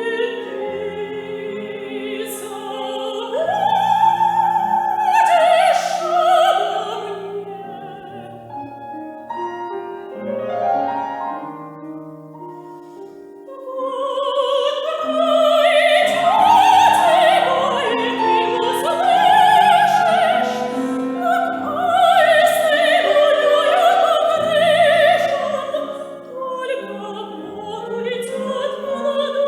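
Soprano singing an operatic art song or aria with piano accompaniment, her voice wavering with vibrato. It drops to a quieter passage where the piano carries the line for a few seconds in the middle, then returns loud.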